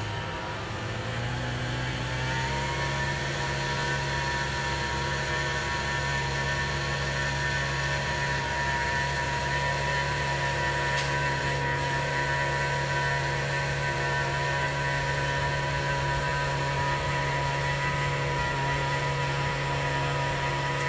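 Small engine on a concrete power screed revving up over the first couple of seconds, then running steadily.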